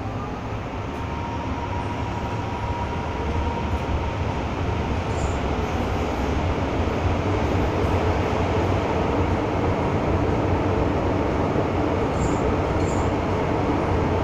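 MTR M-Train metro car running on the rails, heard from inside the carriage: a dense rumble and rail noise that grows louder over the first several seconds, then holds steady.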